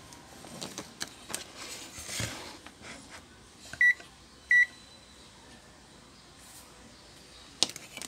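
Digital multimeter (ANENG AN860B+) in diode-test mode giving two short, high beeps about four seconds in, less than a second apart, as its probes bridge a low-resistance path on a circuit board. Light clicks and taps of the probe tips on the board come before and after, with a few sharper clicks near the end.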